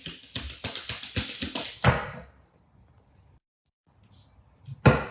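Tarot cards being shuffled by hand: a quick run of slapping, flicking card noise for about two seconds. Then a pause and a single loud thump near the end.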